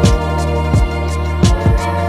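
Background music with a steady beat: held pitched instrument tones over a regular kick drum.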